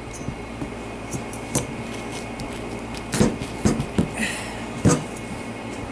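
Kitchen knife being worked into a tough spaghetti squash: a few scattered knocks and clicks, the loudest about three and five seconds in, with a short hiss just after four seconds.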